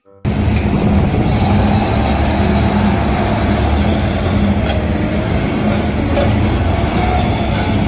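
Komatsu HD465 mining dump truck's diesel engine running as the truck drives, a steady, heavy low drone.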